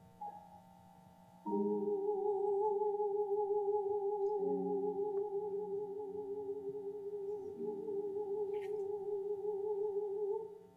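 A woman singer holds one long note with vibrato over grand piano chords; the voice and piano enter together about a second and a half in, the chords change twice underneath, and both stop together at the end.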